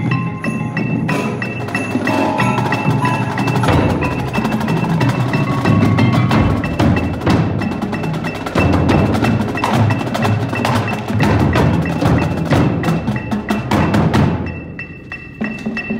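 Marching percussion ensemble playing: marching bass drums and tenor drums with a front ensemble of marimbas and other mallet percussion, in dense rhythmic strokes. The playing thins out briefly near the end.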